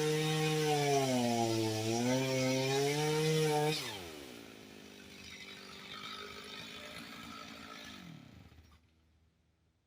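STIHL MS 290 chainsaw's two-stroke engine running with a wavering pitch, then cutting out about four seconds in, its note falling away as it winds down. Faint rattling noise follows and stops near the end.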